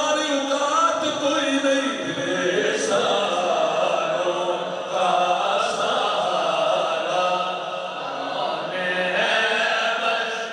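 Male chanting of a naat, an Islamic devotional poem, sung in long drawn-out notes with no clear words.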